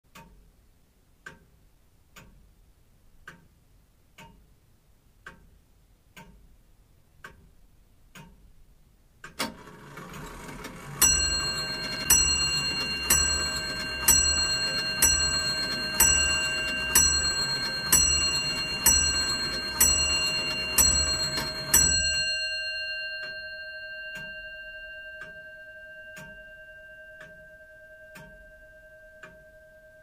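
Antique longcase (grandfather) clock ticking about once a second, then, after a loud click about nine seconds in, striking twelve on its bell at roughly one stroke a second over a mechanical whirr of the striking train. The last stroke's ring fades away slowly while the ticking goes on.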